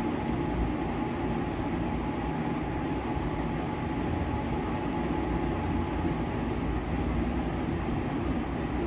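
Steady low rumble and hiss with a faint, even whine: constant background machine noise that does not change.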